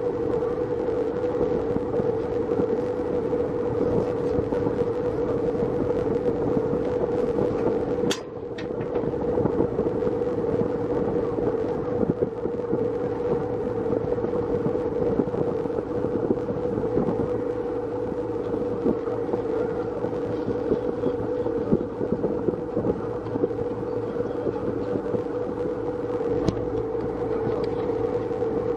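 Sightseeing boat's engine running with a steady drone, with a brief drop in level about eight seconds in.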